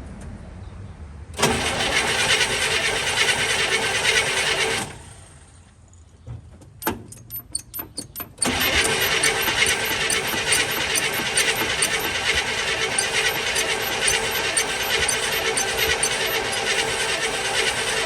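International Scout II engine cranking on its starter without firing, just after its carburettor was cleaned and refitted: one crank of a few seconds, a quick series of short starter bursts, then a long crank of about ten seconds that still does not catch.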